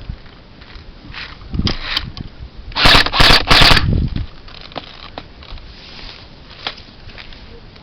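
Airsoft gun fired close to the microphone in three short bursts in quick succession, with scattered clicks and rustling before and after.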